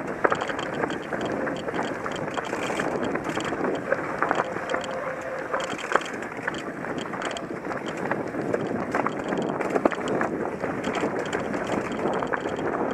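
Mountain bike riding fast down a dirt and rock singletrack: steady tyre noise on the trail with the bike rattling, scattered with frequent sharp clicks and knocks.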